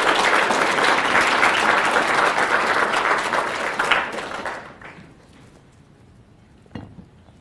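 Audience applauding at the close of a talk, the clapping dying away about four to five seconds in; a single soft knock follows near the end.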